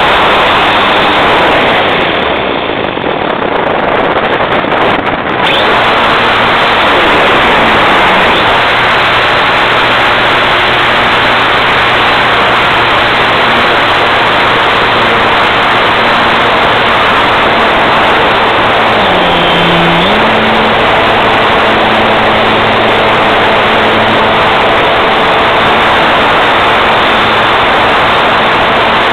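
Small aircraft's engine and propeller droning steadily in flight, heard on board under heavy wind rush. The engine note dips briefly and comes back about two-thirds of the way through.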